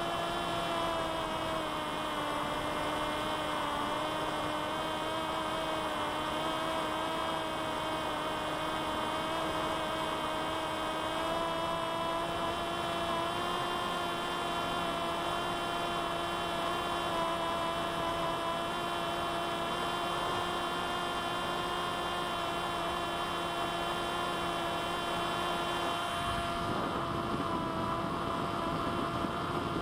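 Electric motor and propeller of a C1 Chaser 1200 mm flying wing, heard from its onboard camera in cruise: a steady pitched whine whose pitch wanders slightly. About 26 seconds in, a rougher low rush joins and the whine rises a little.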